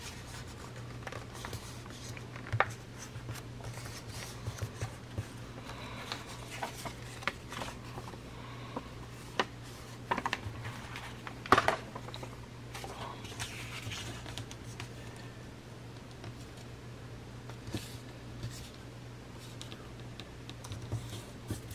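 Sheets of paper being folded and handled: soft rustles and crinkles with scattered sharper crackles and taps, over a low steady hum.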